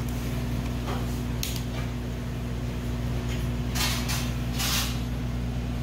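Restaurant room tone: a steady low machine hum, with a few short hiss-like noises, two of them close together about four seconds in.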